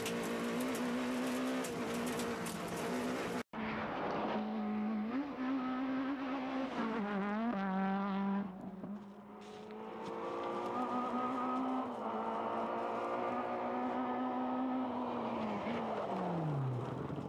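Talbot Samba rally car's engine at hard throttle, its pitch stepping up and down with the gears. About three and a half seconds in the sound cuts out for an instant and then comes back as the car heard from the roadside. Near the end the engine note falls steeply as the car slows.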